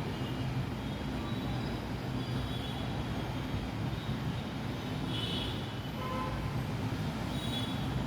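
Steady low mechanical hum and rumble, with a few faint short high-pitched tones about five and six seconds in.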